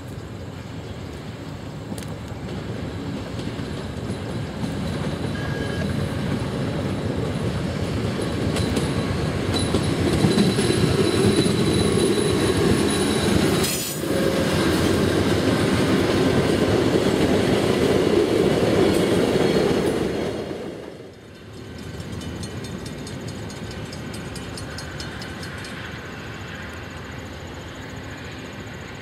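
Passenger train of LRC coaches passing close by: a dense rumble that builds to a loud, steady run for about ten seconds. Near the end it gives way abruptly to a quieter, more distant train sound.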